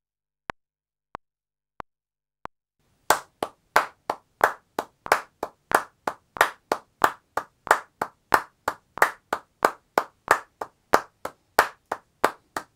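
A metronome ticks lightly on each beat for the first couple of seconds. About three seconds in, hand claps start in a steady run of straight eighth notes, about three a second, clapped as a hi-hat pattern.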